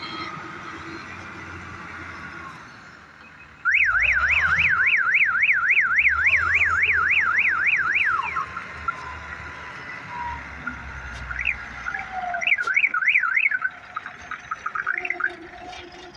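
Loud electronic siren-like alarm warbling rapidly up and down, about three and a half sweeps a second, starting abruptly about four seconds in and stopping about four seconds later; it comes back in broken snatches near the end, over a low engine rumble from the heavy machinery.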